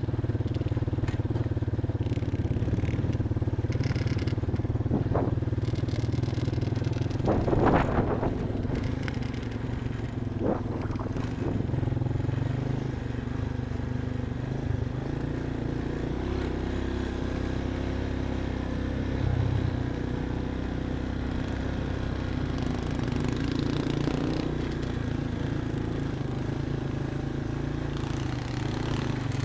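Off-road vehicle engine running steadily at low speed while driving a trail, with a brief knock or clatter about eight seconds in.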